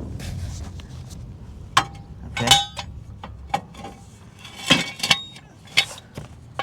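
Steel jack stands clanking as they are pulled out from under the car: several sharp metallic clanks, each with a brief ring.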